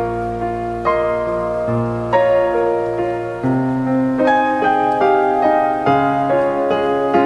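Slow, gentle piano music: notes and chords struck every second or so and left to ring over one another.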